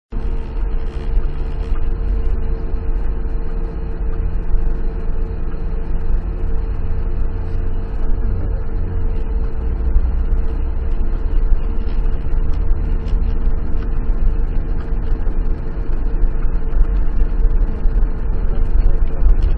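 Car engine running and tyres rumbling over a wet, rough dirt road, heard from inside the cabin. The low rumble is strongest, with a steady hum and scattered small ticks.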